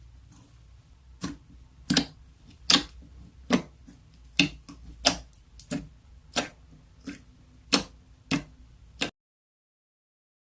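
A series of sharp taps or clicks, about thirteen at roughly one every two-thirds of a second, over a faint low hum; the sound cuts off suddenly about nine seconds in.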